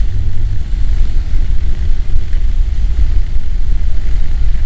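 Heavy wind buffeting on a motorcycle helmet's microphone while riding a Honda NC700X, making a dense, steady low rumble along with road and engine noise. The helmet is a noisy one whose turbulence swamps the microphone.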